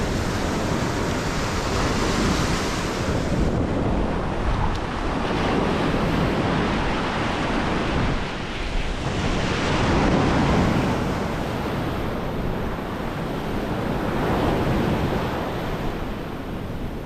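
Ocean surf breaking and washing up the sand at the water's edge, swelling and easing as each wave comes in, with wind buffeting the microphone.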